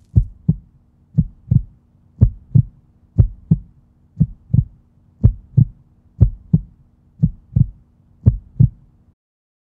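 Heartbeat sound effect: paired low thumps about once a second over a steady low hum, stopping suddenly shortly before the end.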